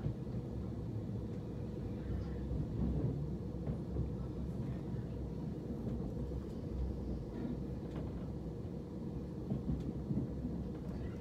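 Interior running noise of a Southern Class 377 Electrostar electric multiple unit in motion: a steady low rumble of wheels on the track under a faint steady hum, with a few faint clicks.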